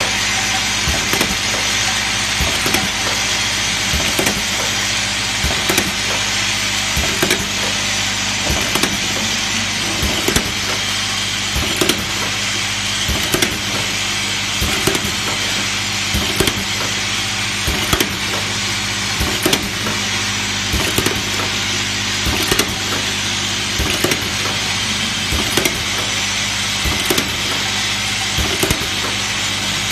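Cap assembling machine running: a vibratory bowl feeder hums steadily while the plastic caps in it rattle, and sharp mechanical knocks from the pneumatic assembly stations repeat about every second and a half.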